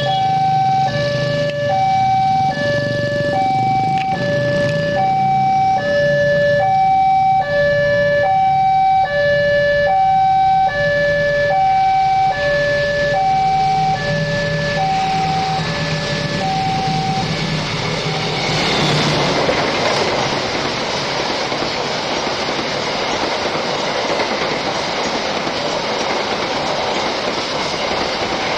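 Railway level-crossing warning bell sounding an electronic two-tone ding-dong, the two pitches alternating steadily, until it stops about 17 seconds in. Shortly after, the KA Taksaka passenger train passes, a loud steady rush of its wheels running on the rails.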